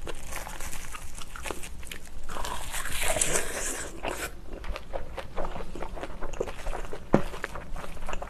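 Close-miked eating of a mouthful of bibimbap and kimchi wrapped in raw laver: chewing with small wet clicks, denser and crunchier around three seconds in. A sharp clink a little after seven seconds as a metal spoon works in the stainless-steel bowl.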